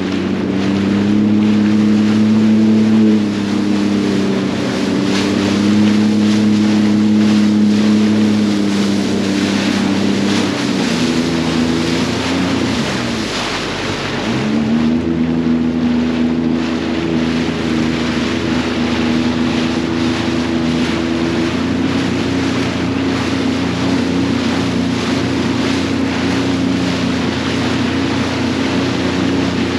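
Sea-Doo GTX 170 personal watercraft's three-cylinder Rotax engine running at a steady cruise, with water hissing along the hull. About eleven seconds in the engine speed falls away, then picks back up a few seconds later.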